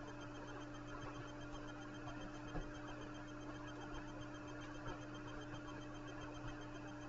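Steady low hum with a faint hiss, with a few faint soft ticks about two and a half and five seconds in.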